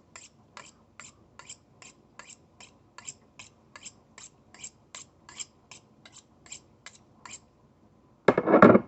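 Knife blade drawn over a sharpener in quick, even strokes, about three a second, stopping about seven seconds in. Near the end comes one short, much louder thump.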